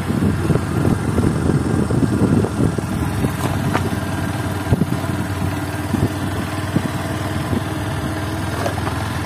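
Motorcycle engine running at steady revs under a continuous low rumble, with no change in pace.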